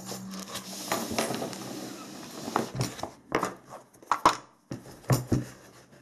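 Cork-backed boards being slid about and stacked on a tabletop: a scraping rustle for the first couple of seconds, then a run of sharp knocks as the boards are set down, the loudest about four seconds in.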